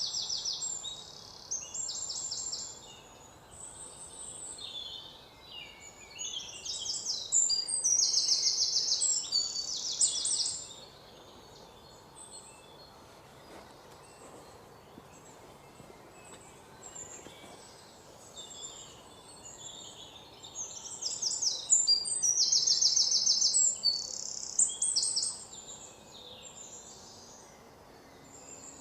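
Several forest birds chirping and singing, with loud rapid trilling phrases about a quarter of the way in and again about two-thirds of the way through, over a faint steady background hiss.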